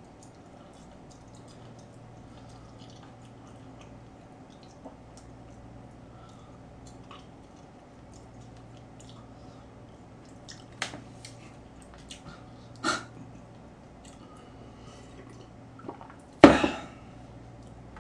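Quiet room tone with a steady low hum, broken by a few brief sharp noises; the loudest comes about sixteen and a half seconds in.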